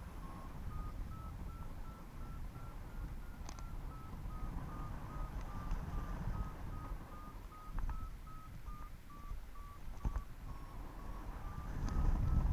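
Paragliding variometer beeping about twice a second, its pitch rising, dipping and rising again as the climb rate in the thermal changes; each beep signals climbing. Wind rumbles on the microphone underneath, strongest near the end.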